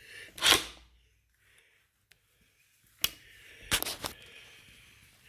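Metal clunks and clicks from the folding stem lock of a Kaabo Wolf Warrior X electric scooter being closed: a loud clunk about half a second in, then a sharp click near three seconds and a short run of clicks just before four seconds as the latch locks.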